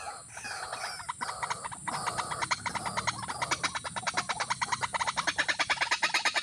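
Animal calls in a fast, even pulsing chorus, about ten pulses a second, with a few short gliding chirps in the first two seconds.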